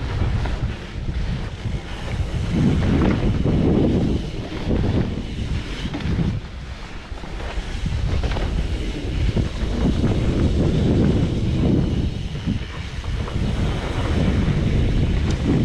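Wind buffeting the microphone of a camera riding along on a mountain bike, an uneven low rumble that swells and dips every second or two.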